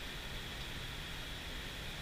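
Steady rush of a mountain stream's flowing water, an even, unbroken hiss.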